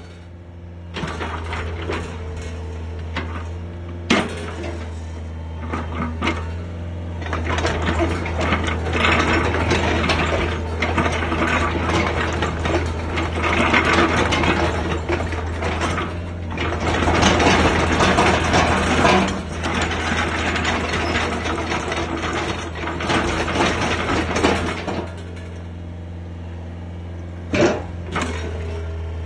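Hitachi ZX50 mini excavator running, its diesel engine holding a steady low drone while the hydraulics work the boom, arm and bucket. Metallic clanking and rattling from the working arm comes and goes, louder through the middle and easing near the end.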